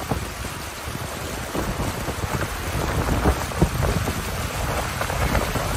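Floodwater churning and splashing around a car's front and wheels as it drives through a flooded street, with a rumble of wind on the microphone.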